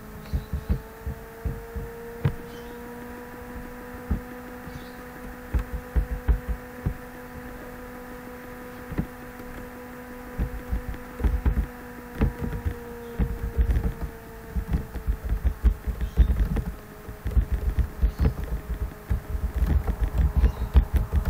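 Typing on a computer keyboard: runs of soft, low key thumps, scattered at first and then fast and dense through the second half. Under them runs a steady hum with a few faint steady tones.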